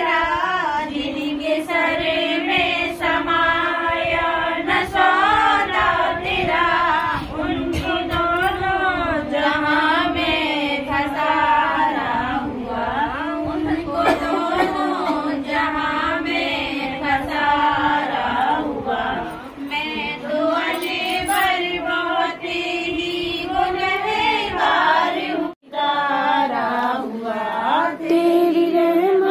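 A group of women chanting an Islamic devotional recitation together in unison, a continuous melodic chant that breaks off for a moment near the end.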